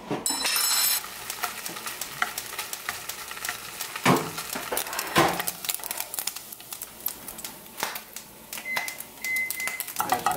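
Turkey bacon sizzling and crackling in a nonstick frying pan, with a fork knocking against the pan twice as the strips are turned. A brief hiss in the first second.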